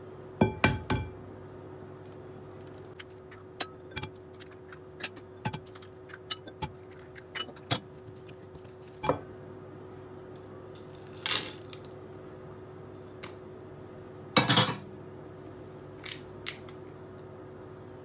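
Kitchen taps and clinks as eggs are knocked, cracked and dropped into a glass mixing bowl of brownie batter, followed by two short pours of chocolate chips into the bowl. A steady low hum runs underneath.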